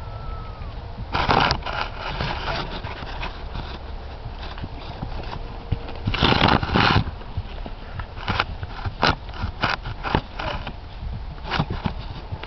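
Thoroughbred horse's hoofbeats on grass footing as it is ridden around the arena: irregular dull knocks, loudest about six seconds in when it passes close by.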